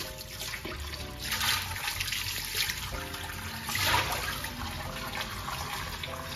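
Kitchen tap running into a glass bowl of button mushrooms as they are rinsed by hand, the water splashing louder about a second and a half in and again near four seconds.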